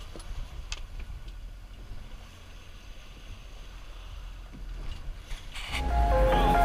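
Low, steady rumble of wind and sea water around an open fishing boat, with a few faint knocks. Background music comes in near the end.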